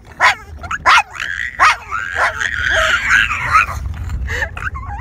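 Boston terriers barking: several sharp yaps in the first two seconds, then a long high whining cry, followed by more short yaps.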